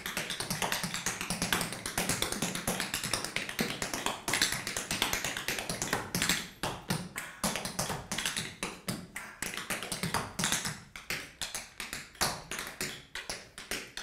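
Tap shoes striking a hardwood floor in a tap dance: a steady run of fast, crisp taps, many a second, with short breaks in the rhythm.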